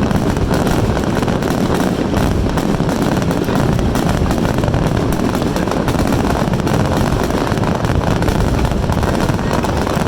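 Fireworks finale barrage: a dense, unbroken run of booms and crackling with a heavy low rumble.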